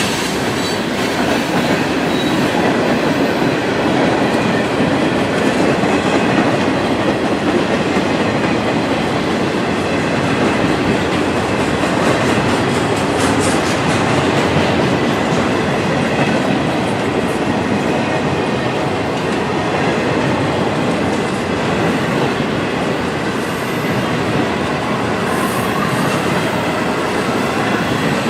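Freight train cars rolling past close by, a steady heavy rumble of wheels on rail with clickety-clack over the rail joints and a faint wheel squeal.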